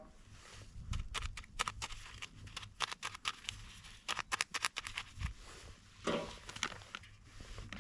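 Quick, irregular clicking and crinkling from hands working a soluble PVA bag and small pellets, densest over the first few seconds, with one louder rustle about six seconds in.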